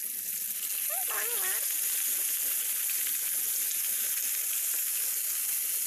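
Tilapia frying in hot oil in a pan, a steady sizzle.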